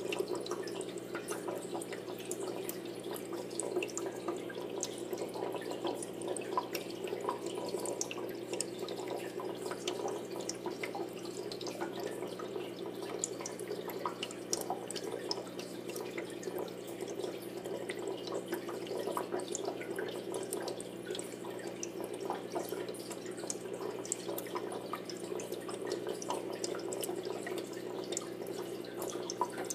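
Aquarium water trickling and dripping, with many small irregular drips over a steady low hum.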